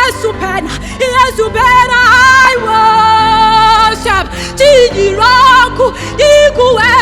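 A woman singing a worship melody in long, wavering held notes and short glides, over held accompanying chords.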